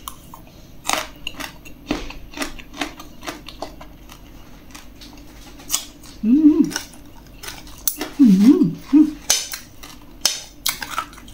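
Metal fork and spoon clicking and scraping against a ceramic plate, sharp clinks scattered throughout. A woman's short hummed murmurs come twice in the middle.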